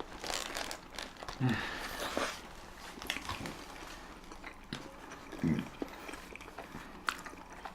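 Close-up eating sounds of chili dogs being chewed: soft wet mouth clicks and bites, with two brief low hums about a second and a half in and again near the middle.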